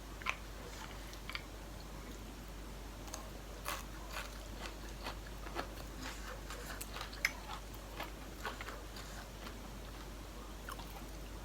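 A person chewing and biting food close to the microphone, with irregular wet clicks and crunches.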